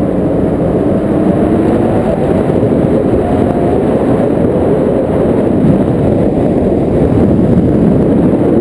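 Wind rushing over an action camera's microphone in flight under a tandem paraglider: a loud, steady, low rumble of buffeting, with a faint wavering whistle at times.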